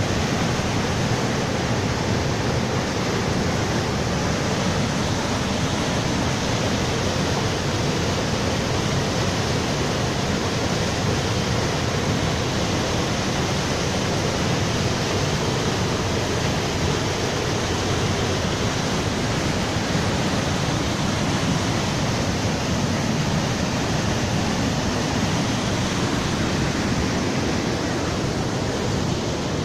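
Radovna River whitewater rushing over rocky cascades in a narrow gorge: a loud, steady rush of water.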